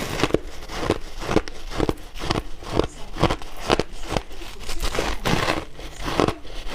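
Chunks of white ice being crunched and chewed between the teeth, with crisp crunches coming about two a second.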